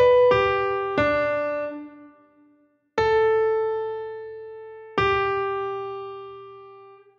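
Piano playing a single-line melody, the closing notes of a musical dictation: two quick notes stepping down, then two long notes struck about two seconds apart, each left to ring and fade.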